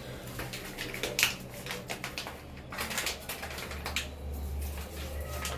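Irregular light clicks and taps, a few at a time, with a low steady hum that comes in about four seconds in.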